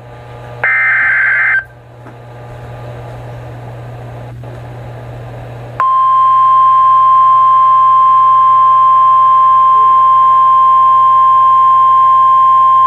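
NOAA Weather Radio alert sounding: the last SAME header data burst, a buzzy warble of about a second just after the start, then about four seconds of radio hiss. The steady 1050 Hz warning alarm tone then starts about six seconds in and holds, announcing a severe thunderstorm warning.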